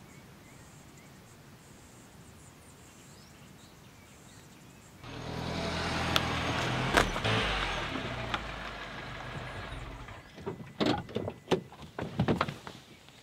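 Faint outdoor background, then about five seconds in a car rolls up with its engine running, the sound dying away about ten seconds in. Near the end come several clicks and knocks as the driver's door opens and someone climbs out.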